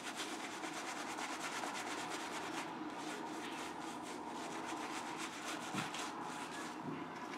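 Slant-bar safety razor scraping through a three-day beard under lather, in a rapid run of short, scratchy strokes that thin out after the first few seconds.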